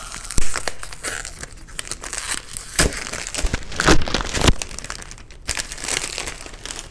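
Clear plastic wrap being peeled and torn off a perfume box, crinkling and crackling, with a few louder rips.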